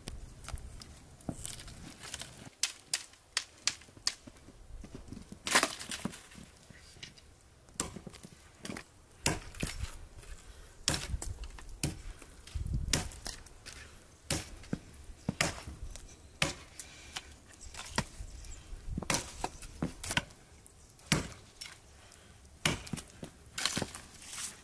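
Chopping with a blade on wood: irregular sharp strikes, sometimes a few in quick succession, then short pauses.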